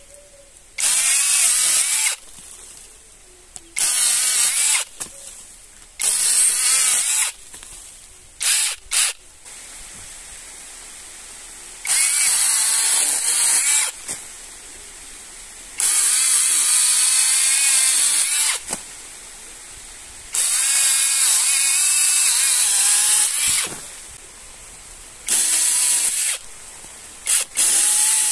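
Cordless brushless power tool from a five-head kit, run in about ten short bursts of one to three seconds each with brief pauses between, its motor whine wavering in pitch as it works.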